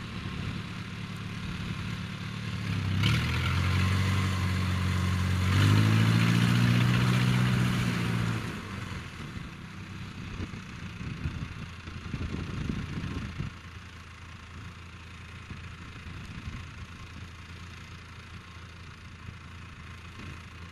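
Engine of a Yanmar tracked rice harvester running as it wades through floodwater: a steady note that gets louder about three seconds in, rises in pitch under more throttle, then drops away suddenly about eight seconds in to a much quieter rumble.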